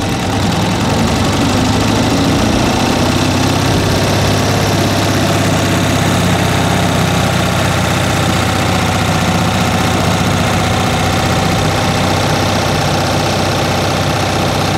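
Older motorbike's engine running steadily at low speed, heard close up from the bike itself while it rides; its pitch rises slightly in the first couple of seconds, then holds.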